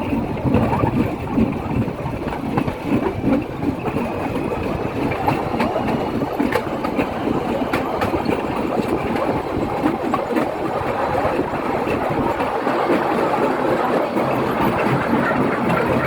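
A vehicle running, with a steady rumbling, rattling noise.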